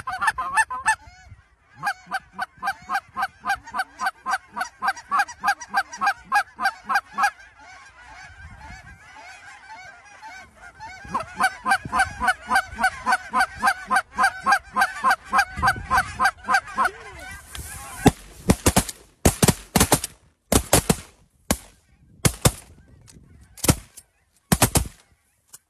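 Geese honking overhead in quick, evenly repeated calls, with a lull of a few seconds in the middle. From about eighteen seconds in comes a string of about ten loud, sharp bangs over some seven seconds: shotgun shots fired at the flock.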